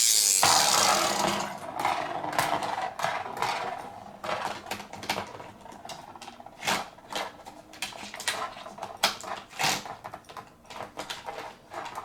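A ripcord is pulled through a Bakugan launcher, giving a loud zipping whir at the start, and the spinning Bakugan then whirs and clatters around the plastic battle arena. The whir fades within a few seconds into scattered plastic clicks and rattles.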